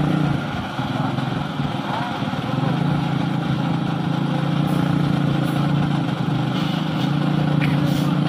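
Orange Mitsubishi Fuso dump truck's diesel engine running steadily, growing louder about two and a half seconds in.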